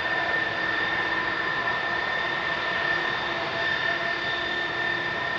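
Airbus A330's twin jet engines at low taxi power: a steady whine over an even rush, with a clear high tone held.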